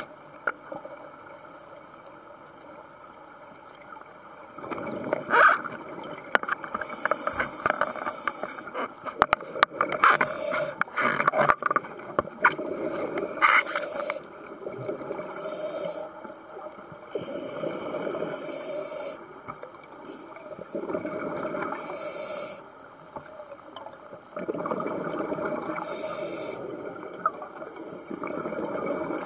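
Scuba diver's breathing through a regulator, heard underwater: a hissing draw of air, then a bubbling rush of exhaled air, repeating every few seconds, with a run of sharp clicks about a third of the way in.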